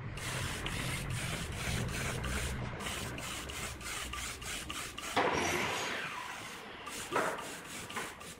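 Compressed-air spray gun spraying finish onto bare wood: a steady hiss of air and atomised finish with a rapid, even sputter, surging louder about five seconds in and again near seven seconds.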